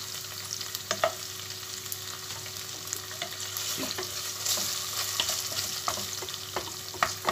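Chopped onion, green pepper and minced meat sizzling steadily in a stainless steel pot, with a wooden spoon stirring and scraping against the pot in scattered knocks. The onion is being fried down until soft.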